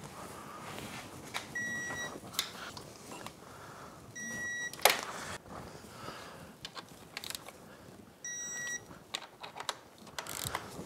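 Electronic torque wrench beeping three times, a steady high half-second beep every few seconds, as each powerhead bolt reaches its set torque of 30 foot-pounds. Ratchet clicks and small metal taps fall between the beeps, and a sharp metal knock comes about five seconds in.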